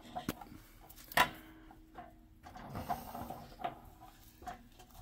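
Scattered small clicks and knocks of hands and a tool working the metal fittings on top of a gas water heater, the sharpest knock about a second in.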